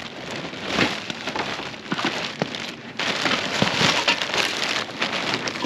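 Large black plastic garbage bag rustling and crinkling as it is pulled and dragged out of a wooden sled, louder over the last few seconds, with a few knocks.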